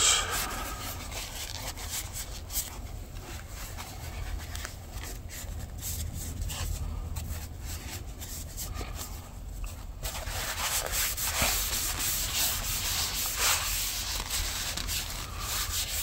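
Paper towel rubbing along a slipjoint knife's freshly oiled wooden scales, wiping off the excess olive oil. It is an irregular, papery rubbing that gets louder about ten seconds in.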